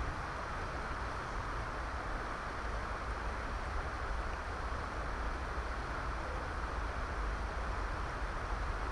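Shallow river water rushing steadily over stones, a constant hiss with a low rumble underneath.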